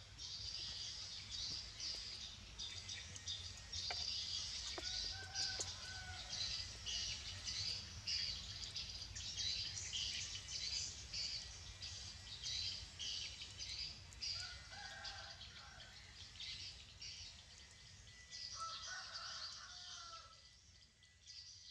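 Small birds chirping rapidly and continuously. Twice, around the middle and near the end, a chicken calls in a lower, drawn-out voice.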